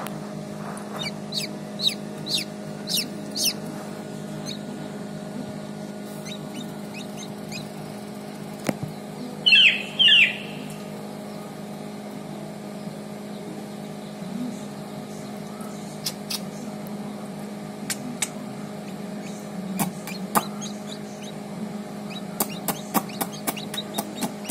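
Day-old chick peeping: a run of short, thin peeps in the first few seconds, then two loud falling peeps about ten seconds in. A steady low hum runs underneath, with scattered faint clicks near the end.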